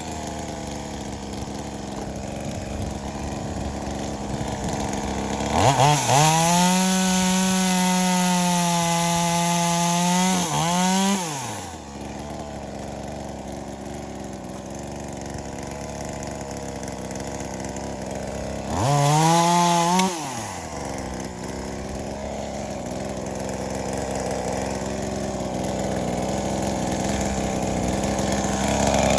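Two-stroke chainsaw, a V-Modest 2511T clone of the Echo 2511T top-handle saw, idling and revved up: held at high revs for about five seconds starting around six seconds in, blipped briefly around nineteen seconds, and rising again near the end.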